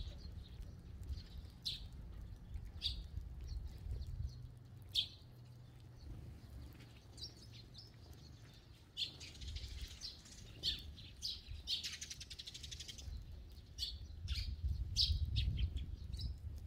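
Eurasian tree sparrows giving short, scattered chirps while feeding on the ground, with a couple of brief flurries of fluttering wings about nine and twelve seconds in.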